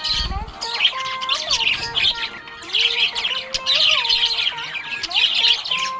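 Budgerigars chirping and warbling: rapid, overlapping high chirps with gliding whistled notes.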